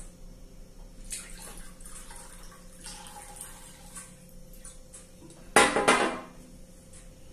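Water poured from a cut-glass decanter trickling into a glass footed bowl for about three seconds, then, about two thirds of the way through, a loud clunk of glass as the heavy decanter is set down on the table.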